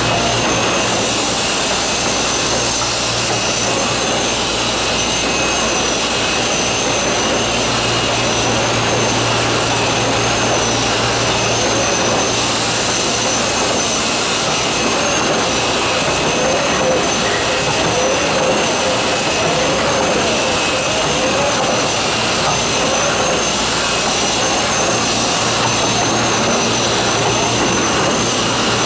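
1993 Sakurai SC 102 DX screen-printing press line running in production: a steady rushing machine noise with a high whine over it and a low hum that drops out and comes back a few times.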